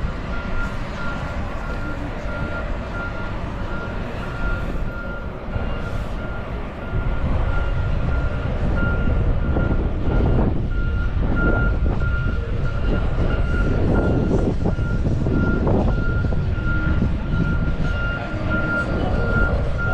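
A vehicle's reversing alarm beeping: one steady tone, repeated at an even rate, over a low rumble that gets louder about seven seconds in.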